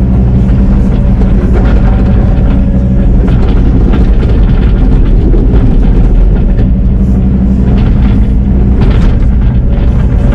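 Excavator diesel engine running steadily under load, with intermittent clunks and knocks from the machine and its bucket working dirt.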